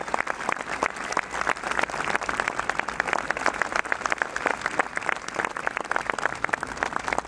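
Crowd applauding: many hands clapping in a dense, unbroken patter at the close of a speech.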